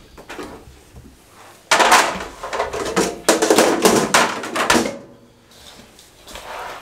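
Stainless-steel spice tray being dragged away across a wooden table, scraping and rattling for about three seconds. Near the end come softer sounds of hands starting to mix the potato filling in a plastic bowl.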